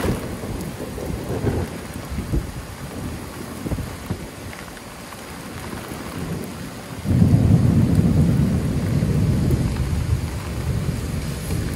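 Thunder rumbling over steady rain: a deep rumble dies away over the first few seconds, then a fresh loud peal breaks in suddenly about seven seconds in and rolls on as a long low rumble.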